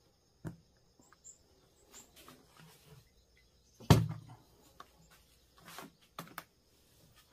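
Plastic jug and hand pressure sprayer handled on a table: scattered light knocks and clicks, with one loud thump about four seconds in. A steady high insect drone in the background.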